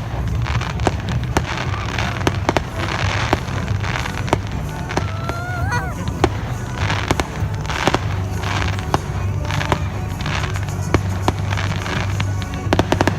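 Fireworks display: repeated sharp bangs and crackling bursts of aerial fireworks throughout, with a quick run of crackles near the end.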